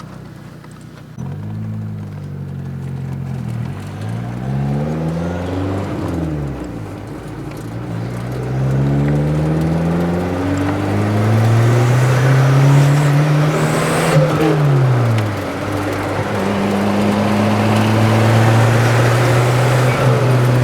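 Ford 2.3-litre turbocharged four-cylinder engine of a 1986 Thunderbird Turbo Coupe accelerating hard through the gears: its pitch climbs, drops back at each gear change, climbs again, and holds steady near the end. It is running on turbo boost raised with a manual boost controller.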